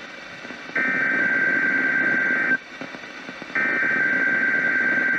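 NOAA Weather Radio EAS/SAME header for a Required Weekly Test: buzzing digital data tones in two bursts, each just under two seconds long, with about a second of radio static between them. These are the signals that set off weather alert receivers.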